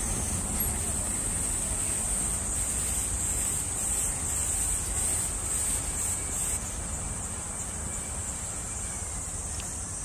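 Steady high-pitched insect chorus, a continuous shrill hiss, that drops quieter about six and a half seconds in, over a low steady rumble.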